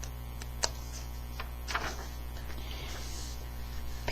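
Steady low mains hum, with a sharp click just over half a second in and a faint brief rustle a little before two seconds in.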